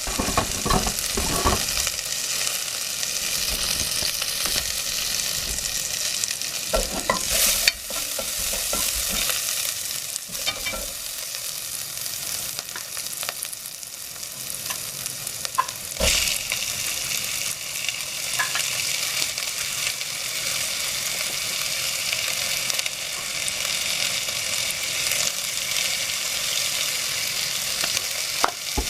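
Food sizzling as it fries in oil in a pan and is stirred, with a utensil knocking and scraping against the pan now and then.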